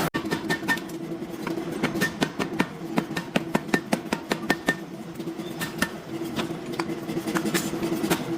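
Irregular metallic clinks and knocks, several a second, over a steady low machine hum: metal parts and tools clattering in a forging shop.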